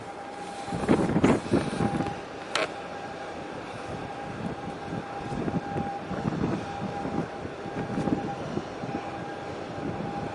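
Wind buffeting the microphone in uneven gusts, strongest about a second in, over a low harbour rumble. A faint steady high tone runs underneath.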